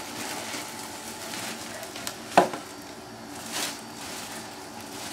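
Low rustling and handling sounds, with one sharp knock about two and a half seconds in and a brief swish about a second later.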